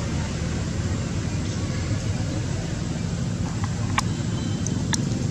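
A steady low rumble of background noise, with a few short, sharp high chirps about four and five seconds in.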